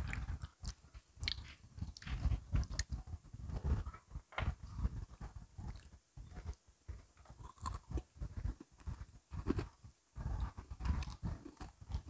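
Close-up chewing and crunching of Oreo cookies and snacks, with irregular sharp crunches and wet mouth sounds.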